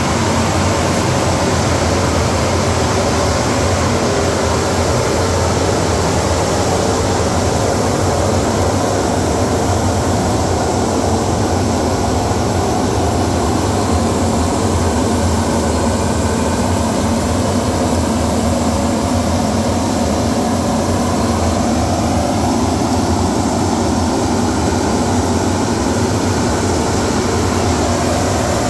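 AirPro industrial centrifugal exhaust fan running, its belt-driven wheel turned by a 30 HP three-phase electric motor: a loud, steady rush of air with a low hum that never changes.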